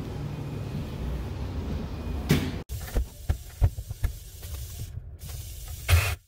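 Handling rumble and a single knock, then a few light clicks and taps of hands on brass pipe fittings. Near the end, water spurts out of the draining hot-water line with a short hiss.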